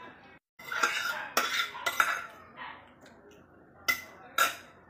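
Metal spoons clinking and clattering against ceramic bowls, a flurry of clatter in the first two seconds and then two sharp clinks near the end.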